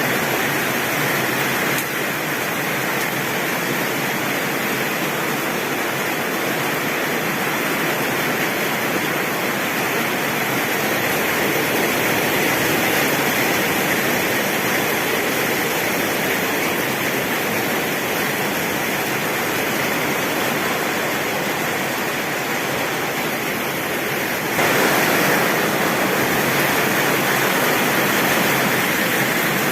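Heavy rain pouring steadily on a tin roof, with no thunder. Near the end it abruptly steps up a little louder.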